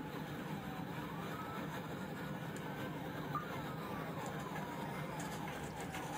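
Police car siren wailing, its pitch sliding up and down, over a steady engine and road rumble.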